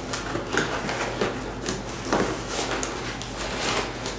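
A cardboard product box being opened and its packing handled: a string of short, irregular scrapes and rustles of cardboard flaps and a plastic bag.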